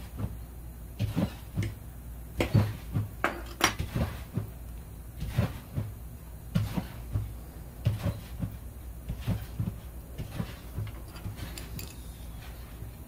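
Metal clinks and knocks at irregular intervals, from adjustable wrenches and small steel die-grinder parts (collet, mandrel, nut) being handled and set down on a steel workbench.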